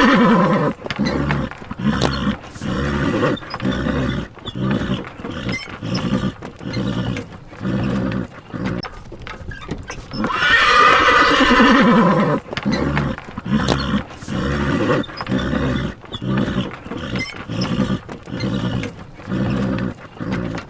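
Horse whinnying twice, once ending about a second in and again for about two seconds around ten seconds in, the call falling in pitch at its end. Between the whinnies comes a steady run of short pulses, a little more than one a second.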